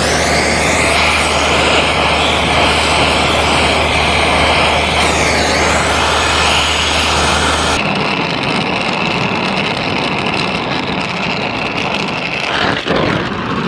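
Gas torch burning with a steady hiss while heating a seized broken bolt in an engine's cylinder head to loosen it. A low hum under the hiss stops about two-thirds of the way through.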